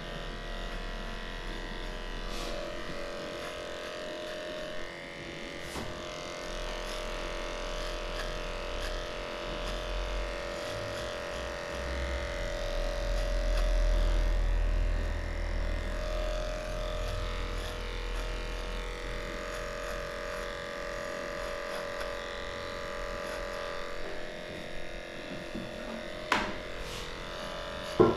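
Cordless dog grooming clippers running with a steady electric hum as they shave through a matted coat. A low rumble swells in the middle, and there are two sharp clicks near the end.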